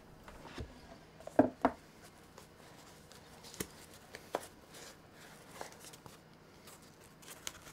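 Handling noises from opening a product box by hand: scattered soft knocks, taps and scrapes as the lid is worked off, the loudest two close together about a second and a half in.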